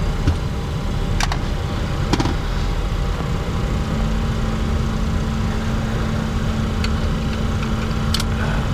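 Steady cockpit noise of a Bombardier Challenger 604 with its GE CF34 turbofan engines running at low taxi power: an even hum and hiss, with a faint tone that steps slightly higher about three and a half seconds in. A few sharp clicks come through, about one, two and eight seconds in.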